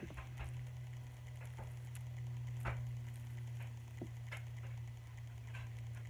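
A plastic fidget spinner being handled and spun in the hand: scattered small clicks and a faint sizzle-like whir, over a steady low hum.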